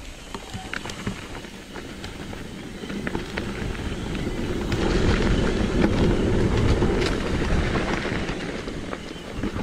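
Mountain bike riding fast down a dirt trail: tyre rumble and crunch over the ground with scattered rattling clicks, growing louder toward the middle as speed picks up.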